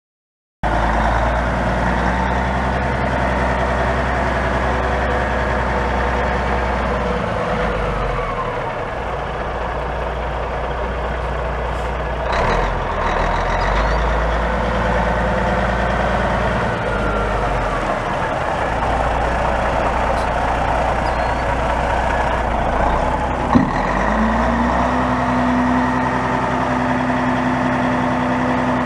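1986 Freightliner FLC-64T dump truck's Caterpillar 3406 inline-six diesel running, its pitch shifting a few times, with a short hiss a little before halfway. About 23 seconds in a sharp clunk, then a steady whine joins the engine as the PTO hydraulic hoist raises the dump bed.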